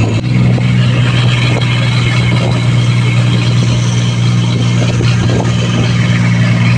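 Small fishing boat's engine running steadily at cruising speed, a constant low hum of unchanging pitch, with a hiss of wind and water rushing past.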